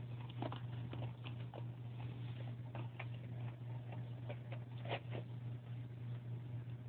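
Irregular soft clicks and ticks, a few sharper ones among them, over a steady low hum.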